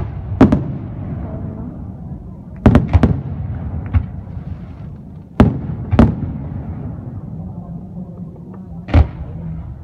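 Fireworks display: aerial shells bursting with sharp bangs, about seven at irregular intervals, over a continuous rumble.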